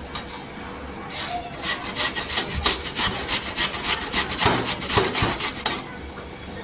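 Peeled apple being grated on a hand grater: quick rasping strokes, about four a second, starting about a second and a half in and stopping near the end.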